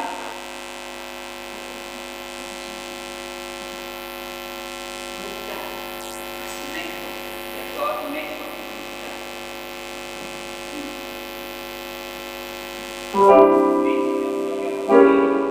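A steady electrical hum, then a grand piano: a chord struck about thirteen seconds in that rings and fades, and another about two seconds later.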